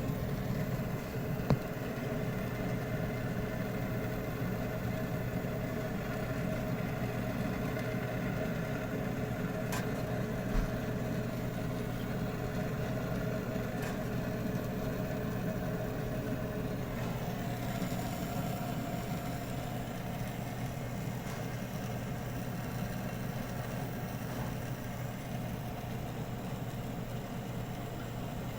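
Steady machine hum with several held tones, broken by a short knock about a second and a half in and another about ten seconds in.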